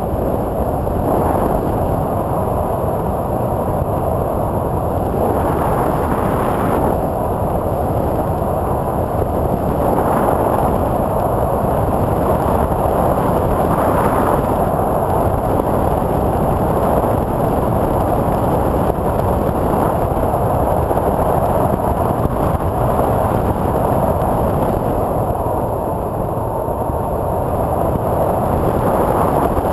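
Onboard sound of a TwinStar II twin-motor RC plane: wind rushing over the camera microphone mixed with the steady drone of its two electric motors spinning 8x6 propellers, swelling slightly at times.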